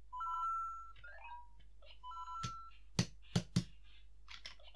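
LEGO Luigi interactive figure playing short electronic beeps and chirps from its built-in speaker. About three seconds in there are three sharp knocks of plastic on plastic.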